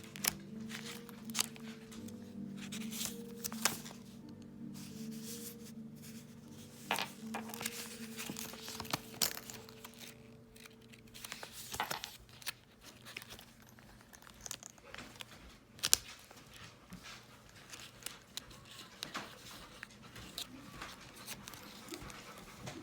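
Paper pages of a small travelers notebook being flipped and handled: rustling, crinkling and soft taps, with a sharp click about two-thirds of the way through. Quiet background music plays during the first third and fades out.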